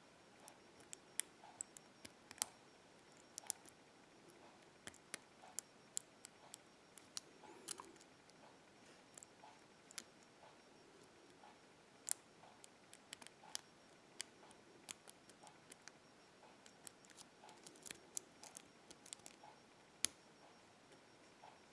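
Lock pick working the pin stacks of a 6-pin BEST SFIC padlock core under tension: faint, irregular metallic clicks and ticks as pins are lifted and set.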